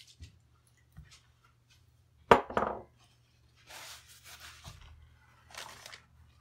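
A sharp metallic clink with a brief ring about two seconds in, from small steel Ruger 10/22 bolt parts, then soft scraping and rubbing as the parts are handled in the fingers.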